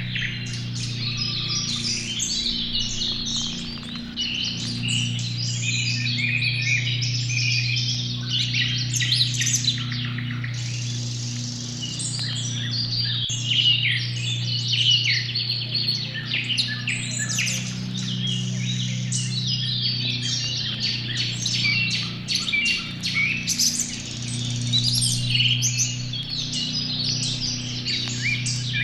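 Several small songbirds chirping and calling over one another in a busy, continuous chorus, over a steady low hum.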